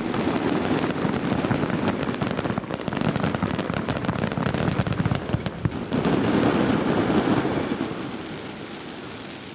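Fireworks going off in a dense, fast crackle of many small bursts. It swells about six seconds in, then fades away near the end.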